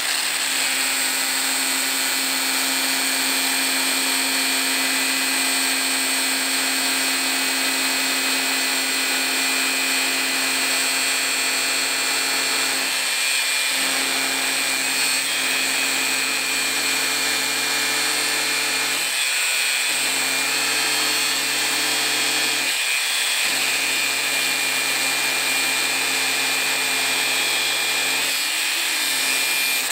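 Angle grinder running steadily, its abrasive cutoff disc grinding through a strip of hard tool steel. The low hum of the motor dips briefly a few times.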